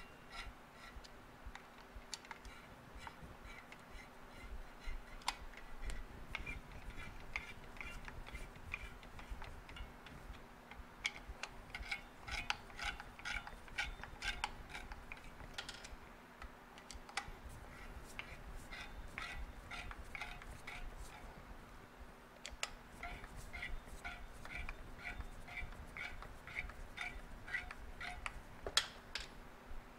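Ratchet wrench clicking in short runs, a few clicks a second, as the clutch spring screws are tightened down one after another, with light clinks of metal tools and parts between.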